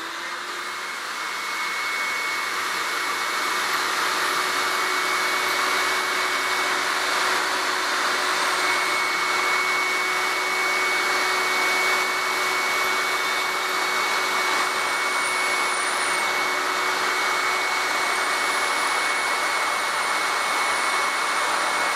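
MIE Ecologico water-filter vacuum cleaner with separator running, sucking up spilled water from the floor through its liquid-collection nozzle. The motor spins up over the first couple of seconds, then gives a steady rush of air with a high whine.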